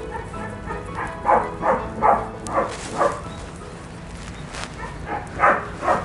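A dog barking: a quick run of five barks starting about a second in, then two or three more near the end.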